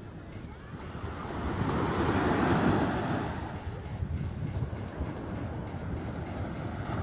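A short, high electronic beep repeating about twice a second and gradually quickening, over a rushing noise that swells and fades a few seconds in, with a low rumble underneath.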